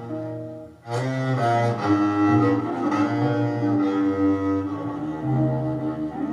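Recorded bowed-string music with a low cello-like line, played back through a single-ended class A tube amplifier. The music dips briefly just before a second in, then a new phrase comes in sharply and carries on.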